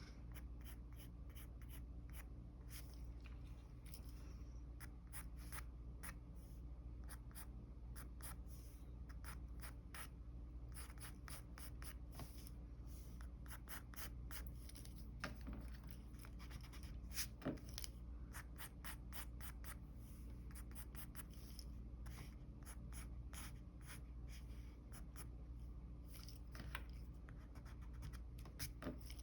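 Mechanical pencil sketching on paper: a steady run of short, quick scratching strokes, a few of them louder, over a steady low hum.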